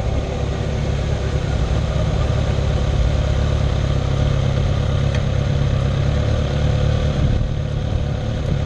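Kawasaki ZX-6R 636's inline-four engine running steadily at low revs, heard from a mount on the bike.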